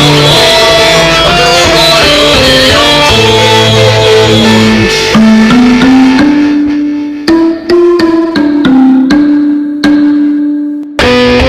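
Instrumental music: a sustained melody over full backing with percussion. About halfway through, the backing drops out and the melody goes on in separate notes with short pauses. The full band comes back just before the end.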